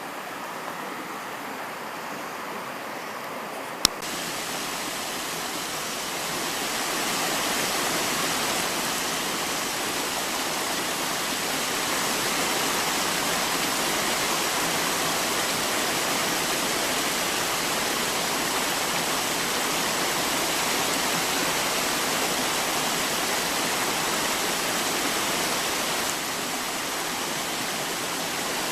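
Waterfall's steady rush of falling water. A single sharp click comes about four seconds in, after which the rush is louder.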